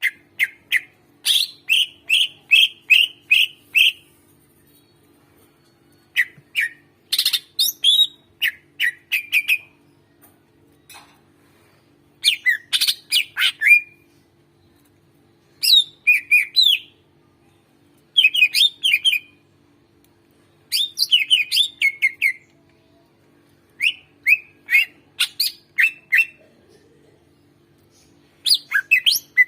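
Cucak ijo (greater green leafbird) singing loudly in phrases of rapid, repeated sharp chirps, each phrase lasting one to two seconds with short pauses between. A faint steady hum runs underneath.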